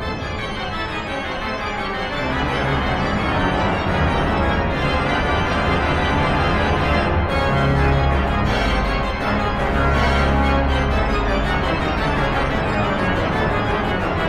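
Cavaillé-Coll pipe organ playing loud, dense sustained chords over a heavy pedal bass. The piece is a pedal study in which the pedal line is played in octaves.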